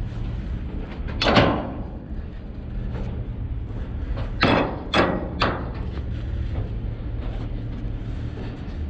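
Four loud bangs with a ringing tail, one and then three about half a second apart, over a steady low rumble.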